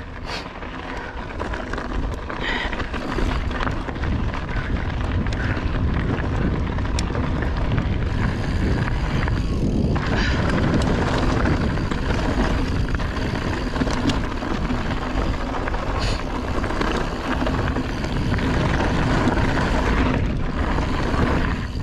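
Wind buffeting the camera microphone and tyres rolling over rocky dirt as a mountain bike is ridden along a trail, a steady rushing rumble with occasional knocks and rattles from the bike over bumps.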